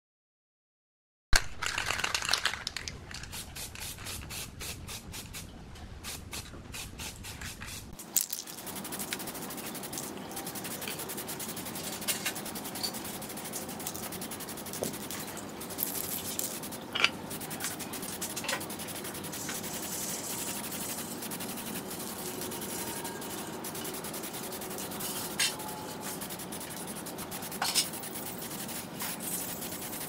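A wire brush wheel on an electric bench motor scrubbing rust and old paint off a metal ceiling-fan blade for several seconds, then, about eight seconds in, an aerosol spray-paint can hissing steadily with occasional sharp clicks as fan housing parts are painted.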